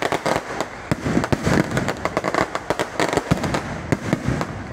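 Fireworks going off: a dense, irregular string of sharp bangs and crackles, many a second, with rockets streaking up and bursting overhead.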